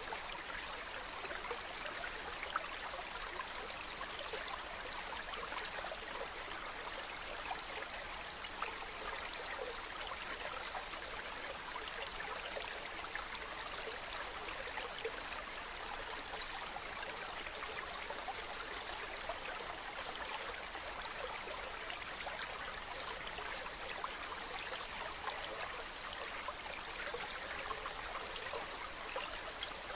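Stream of running water, a steady rush with small splashes scattered through it.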